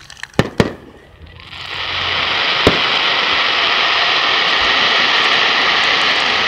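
Fireworks: two sharp bangs in the first second, then from about a second and a half in a loud, steady hissing crackle of glittering bursts, with one more bang partway through.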